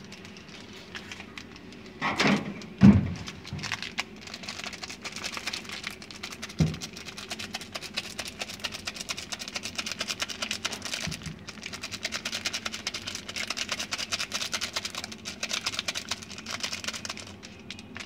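A foil Maggi masala sachet crinkling as it is shaken and squeezed over dry crushed noodles in a glass bowl: a long, fast run of small ticks and rustles. A couple of heavier thumps come a few seconds in.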